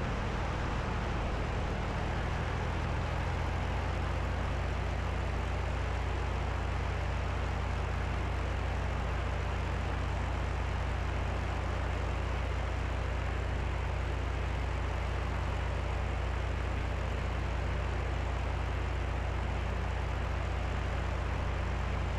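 Cessna 172B's piston engine and propeller droning steadily, heard inside the cabin on approach with 20 degrees of flaps set. The low engine note shifts slightly about three seconds in.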